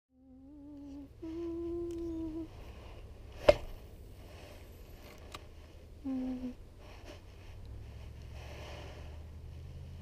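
A person humming short, steady notes, with one sharp click about three and a half seconds in, over a low steady rumble.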